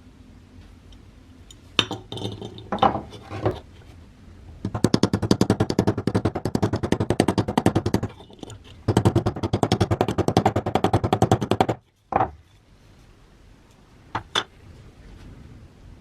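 Metal clinking and handling, with two runs of rapid, evenly spaced rattling strokes, about a dozen a second, each lasting a few seconds, and a few sharp single clicks before and after.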